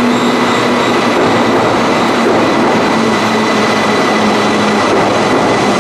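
JR 185 series electric train pulling into a station platform, its running noise blended into a steady, loud platform din.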